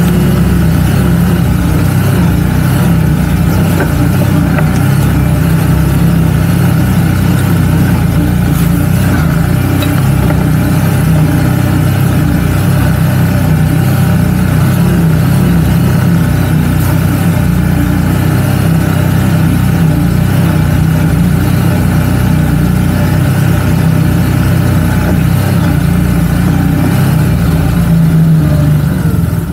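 CFMoto CForce 1000 ATV's V-twin engine running steadily as the quad rides along.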